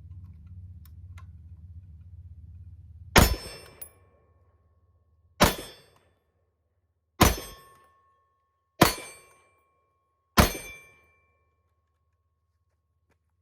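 Five gunshots from an AR-15-style pistol, fired singly at uneven intervals of about one and a half to two seconds. After most shots a steel target rings briefly with a clear ding, a sign of a hit.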